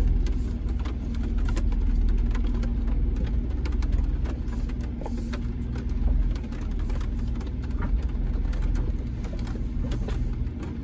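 Jeep Wrangler JK engine running steadily at low revs as it crawls down a steep rocky drop-off, with scattered clicks and knocks throughout.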